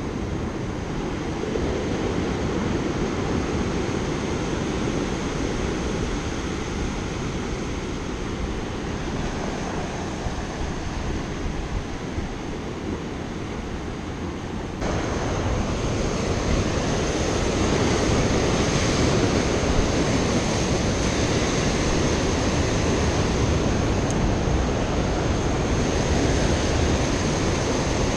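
Rough ocean surf washing and breaking against lava rocks, a steady rushing wash mixed with wind buffeting the microphone. The roar steps abruptly louder about halfway through.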